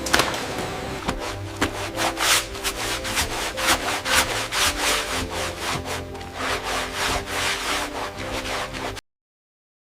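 Repeated rough rubbing strokes, several a second, over steady background music tones. All sound cuts off abruptly about nine seconds in.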